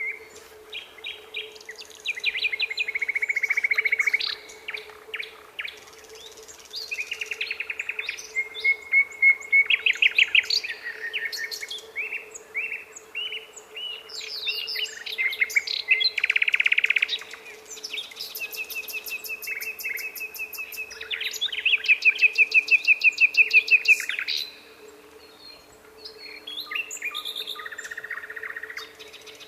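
Nightingale singing: a run of varied phrases of fast repeated notes and rattling trills, some loud and clicking, separated by short pauses.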